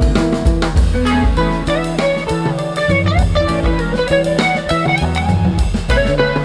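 Background music: an upbeat band track with guitar, bass and a steady drum beat.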